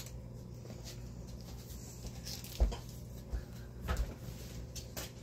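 Quiet kitchen with a steady low hum and a few soft knocks, the loudest about two and a half seconds in.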